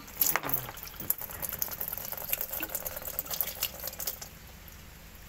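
Fluid draining from a removed hydraulic pipe, pouring and splashing into a plastic drain pan, with a few sharper clinks in the first second. The flow thins to a quieter trickle near the end.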